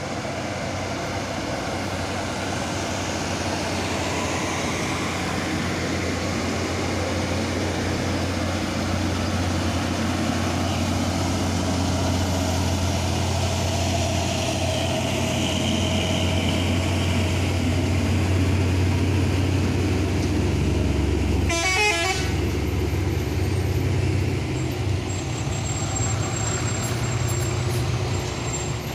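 Heavy diesel engines of trucks and a tour bus running as they labour up a steep grade and pass close by, with a vehicle horn tooting. A short, harsh burst of noise cuts in about three quarters of the way through.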